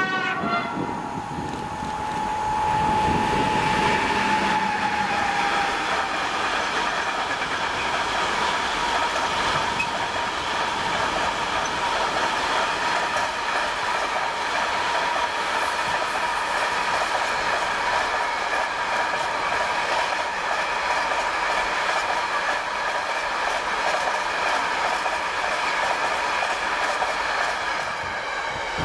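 Pesa Gama electric locomotive sounding a long horn blast as it approaches, the horn's pitch falling as it draws level, then a long container freight train rolling past with steady wheel rumble and clickety-clack, easing as the last wagons pass near the end.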